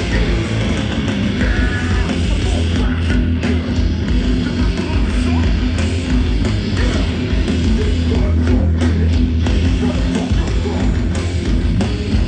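Loud live hardcore band playing heavy, distorted electric-guitar music.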